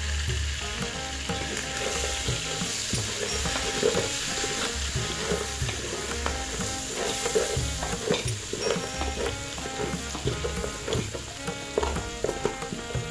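Pork pieces and chopped tomatoes sizzling in a large metal pot while a wooden spoon stirs and scrapes them, with repeated short knocks and scrapes of the spoon against the pot.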